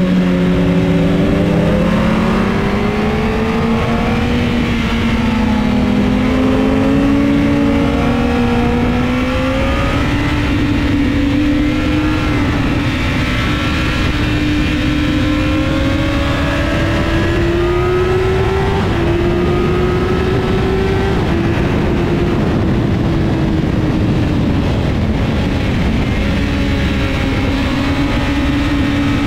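An engine running continuously, its pitch drifting slowly up and down over many seconds, over a heavy low rumble of noise.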